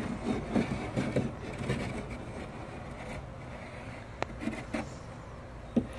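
Chalk scraping on a plywood board in short, irregular strokes, over a steady low rumble, with a sharp click about four seconds in and a knock near the end.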